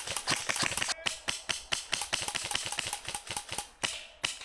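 Airsoft guns firing rapid strings of shots, a fast clatter of sharp clicks.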